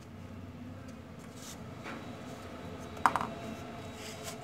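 Small handling noises as cardboard craft parts are fitted together by hand, a few soft scrapes and one sharp click about three seconds in.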